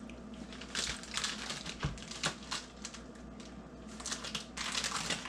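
Crinkling of a plastic cheese package with quick, irregular clicks and crackles as a slice of cheese is pulled out, starting about a second in.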